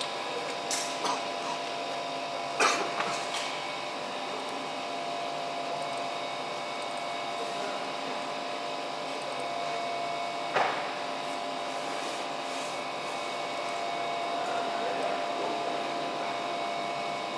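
Steady hum of running workshop machinery, with a faint high whine in it. A few sharp clicks or knocks break in, the loudest early on and again about halfway through.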